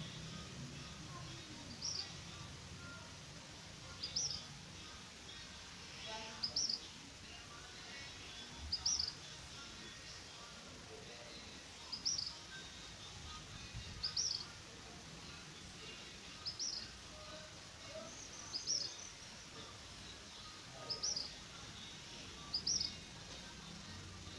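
A bird calling over and over, each call a short high chirp of two or three quick notes, repeated about every two seconds.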